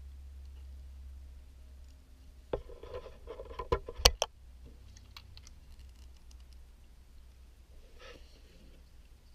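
Hard plastic parts of a Transformers figure clicking and knocking as it is handled and transformed: a quick run of clicks about two and a half seconds in, the sharpest about four seconds in, then a soft rustle near the end.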